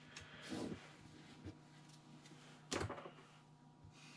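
Trading cards being handled and set down on a wooden desk: a few soft, faint handling sounds and one sharper tap about two-thirds of the way through.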